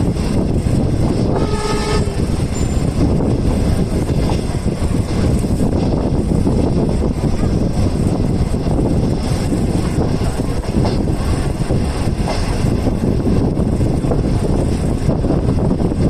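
Steady rushing rumble of a moving passenger train heard from the window of a non-air-conditioned green-skinned coach: wind and wheels running on the rails. About a second and a half in, a train horn sounds one short blast.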